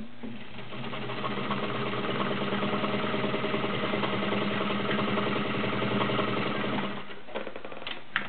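Kenmore Model 33 all-metal sewing machine, freshly serviced, running at a steady speed as it stitches through two layers of fabric. It starts about half a second in and stops about a second and a half before the end, followed by a couple of small clicks.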